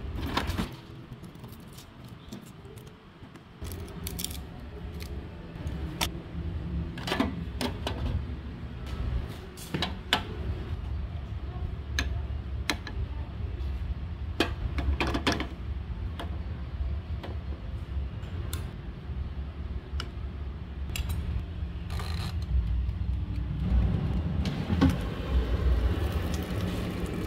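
Scattered clicks and clinks of a metal spoon against oyster shells and the air fryer's metal basket as scallion oil is spooned onto the grilled oysters, over a steady low hum.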